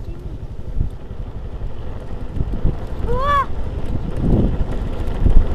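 Wind buffeting the microphone while riding a motor scooter along a bumpy dirt track, with a low rumble and a few heavy thumps. About three seconds in there is one short high call that rises and falls.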